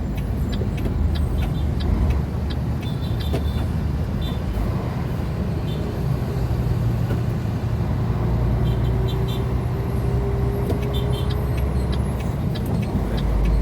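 Semi-truck's diesel engine running on the road, heard from inside the cab. It is a steady low drone, and the engine note climbs slowly from about halfway through, with faint rattling clicks now and then.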